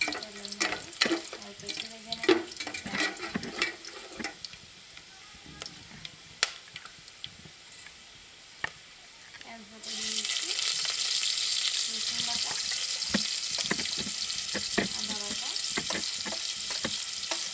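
Metal spatula scraping and clicking against a metal pot while sliced onions fry in oil. About ten seconds in, a loud steady sizzle starts suddenly, as meat and spice paste go into the hot oil.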